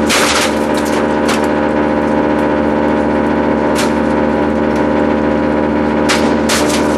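A 30-hp direct-drive ABBE plastics grinder running with a steady hum, its five-blade open rotor cracking up plastic pieces against the bed knives in sharp snaps, in clusters near the start, about four seconds in, and near the end.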